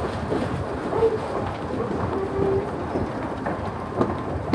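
Electrically driven department-store escalator running with a steady low rumble, with a few brief faint sounds from people passing, such as footsteps.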